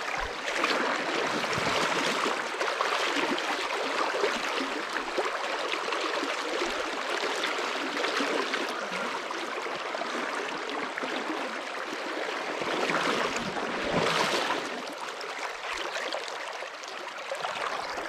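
Fast river riffle water rushing steadily, with a brief louder rush about three-quarters of the way through.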